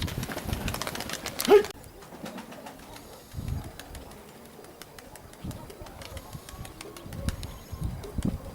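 Domestic pigeons cooing in low, soft pulses. In the first second and a half there is a dense run of sharp clicks and knocks, which cuts off suddenly.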